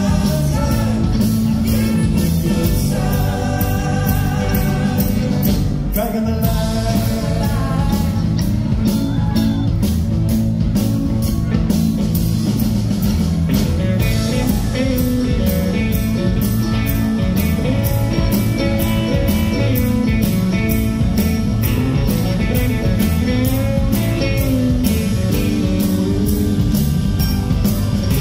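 Live rock band playing a bluesy song: electric guitars, bass and a drum kit keeping a steady beat, with a woman singing lead.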